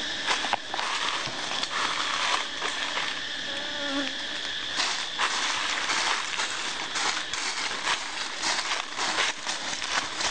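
Honeybees buzzing around a hive being harvested, with crackling of dry leaves and footsteps underfoot.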